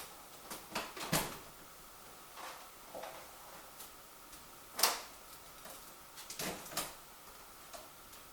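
A few scattered sharp clacks and knocks of hard objects being handled and set down, the loudest a little before five seconds in, over a faint steady hum.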